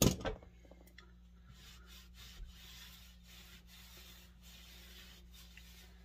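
A sharp knock right at the start, then a cloth rag rubbing linseed oil into a dry wooden axe handle in soft, repeated wiping strokes.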